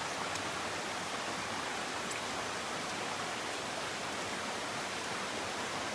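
Steady, even rushing noise with no distinct events, outdoor ambience that sounds like hiss, running water or wind.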